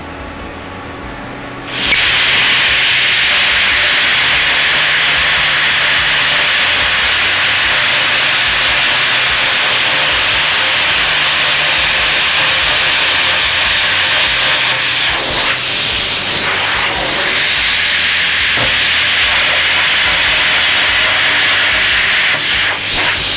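Plasma cutter cutting through the steel water heater tank: the air-plasma arc starts abruptly about two seconds in and runs as a loud, steady hiss.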